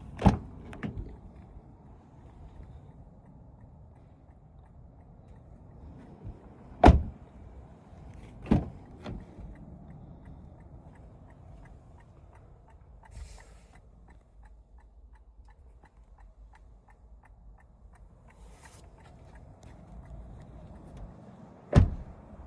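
Car doors shutting: four heavy thumps, spread out, over a low steady hum. In the middle stretch comes an even, light ticking about twice a second.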